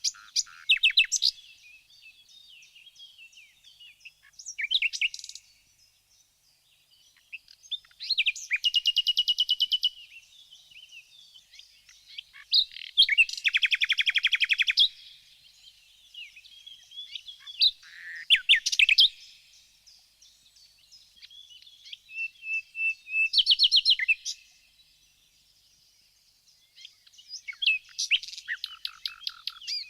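Small songbirds chirping, with loud bursts of fast trilling every few seconds between softer scattered chirps.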